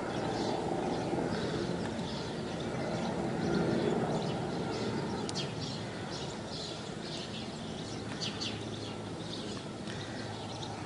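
Mil Mi-17 military helicopter flying over at a distance: a steady low rotor and engine noise that swells a little and then eases, with small birds chirping over it.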